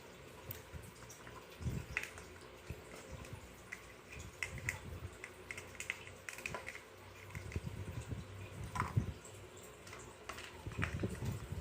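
Water dripping and splashing with light, irregular clicks and knocks of small plastic toy dishes, cups and spoons being washed in a toy sink.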